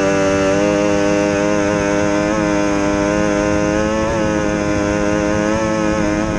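Outboard engine of an SST 60 tunnel-hull race boat running at a steady high pitch under way, heard from on board. Water and wind rush sit under it.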